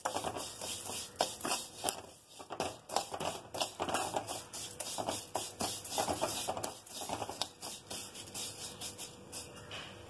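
Steel ladle scraping and clicking against a metal kadai while vermicelli is stirred and roasted dry on low flame, the strands rustling; irregular strokes that thin out and get quieter near the end.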